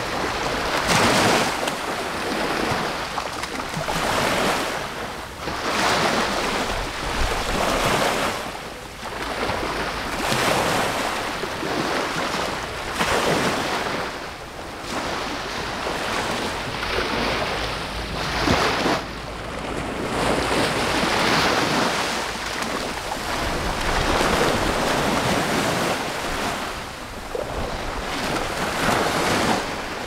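Small sea waves lapping and washing against a concrete seawall, swelling and falling every two to three seconds, with wind rumbling on the microphone.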